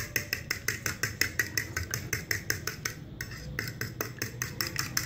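A fork beating raw eggs on a plate, the metal tines clicking against the plate about six times a second in a fast, even rhythm, with a brief pause about three seconds in.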